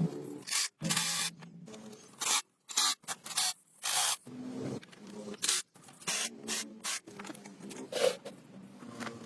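Aerosol spray can sprayed in many short bursts of hiss, with brief gaps between them.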